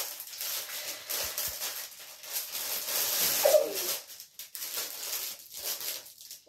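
Shiny metallic gift wrap crinkling and tearing as a tube-shaped present is unwrapped by hand, with a brief pitched sound rising and falling about halfway through.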